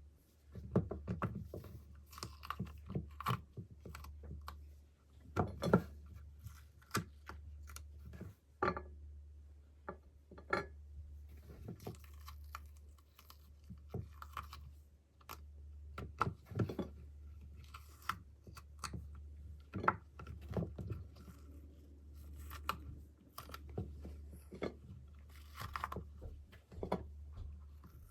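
Irregular taps, clicks and crackles from food preparation by hand, over a steady low hum.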